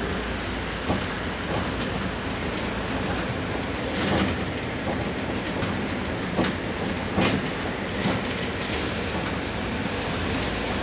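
Interior noise of an articulated city bus under way: a steady rumble with rattles and knocks from the seats and fittings every second or so.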